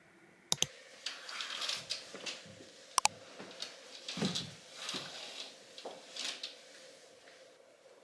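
Soft rustling of fabric being handled, with two sharp double clicks, one about half a second in and one about three seconds in.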